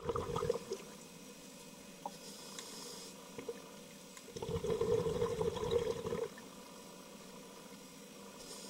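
Scuba diver breathing through a regulator underwater. There is a brief run of exhaust bubbles at the start, a soft hiss of inhalation through the regulator about two seconds in, then a loud burst of exhaled bubbles gurgling past the housing for about two seconds from roughly four seconds in.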